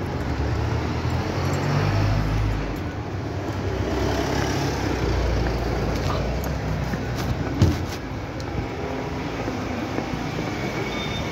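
Outdoor street noise: a steady low rumble that swells twice, with one sharp knock about two-thirds of the way through.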